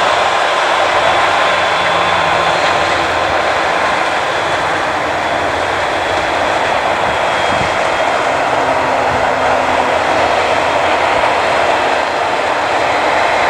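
Claas Jaguar 980 self-propelled forage harvester chopping maize under load: the engine, chopper drum and crop blower make a steady, loud, even mechanical noise, with the tractor pulling the trailer alongside mixed in.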